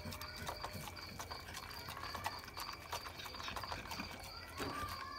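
Pit bull eating chicken and rice from a metal bowl: quick, irregular wet chewing and lip-smacking clicks as it gulps the food, with a short high tone near the end.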